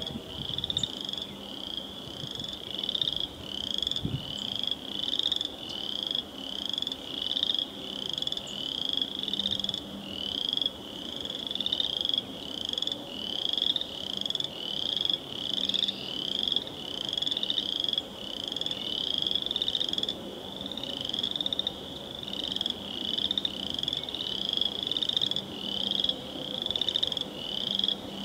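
Chorus of frogs: short high rising peeps repeating about twice a second, with a faint low hum underneath and a single low thump about four seconds in.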